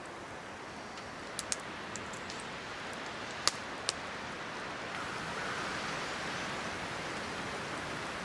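Wood fire burning in an old cast-iron woodstove with its door open: a few sharp pops and crackles, four within the first four seconds, over a steady hiss.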